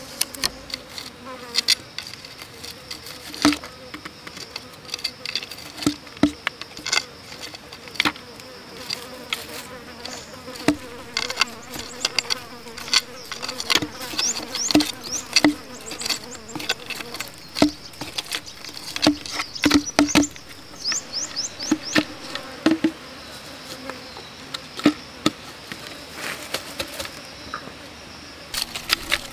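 Knife working a bamboo tube: irregular sharp knocks and scrapes, with an insect buzzing steadily in the background.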